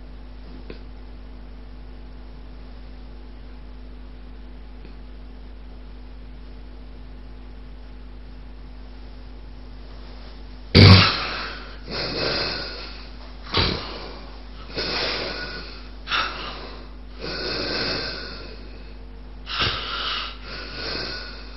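About ten seconds with no breath sounds, only a steady faint hum and hiss. Then a sudden loud snort and a run of heavy snoring breaths, about one every second or so. This is the pattern of obstructive sleep apnea: the airway closes, breathing stops, and the sleeper snorts loudly and starts breathing again.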